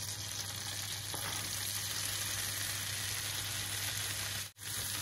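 Butter sizzling in a nonstick frying pan as diced white cabbage is poured in to fry, a steady hiss broken by a brief gap near the end.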